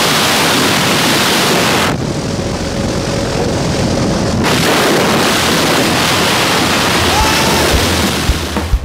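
Loud, steady rush of wind battering the camera microphone at the open door and in freefall during a tandem skydive. The hiss thins for a couple of seconds about two seconds in, then comes back full.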